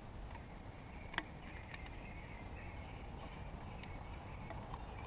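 Faint plastic clicks from a battery charger pack's case being handled, the sharpest about a second in, over a low steady background hiss.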